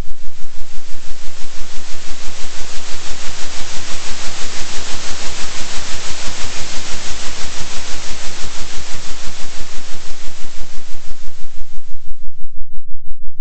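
Synthetic hiss-like noise over a steady low hum, its loudness pulsing evenly about three times a second: a 3 Hz oscillation. The hiss swells toward the middle and drops out for a moment near the end.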